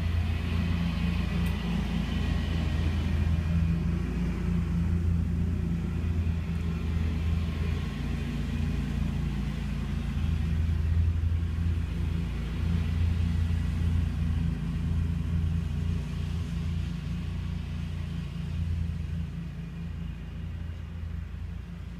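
Steady low motor rumble with a constant deep hum, easing off a little near the end.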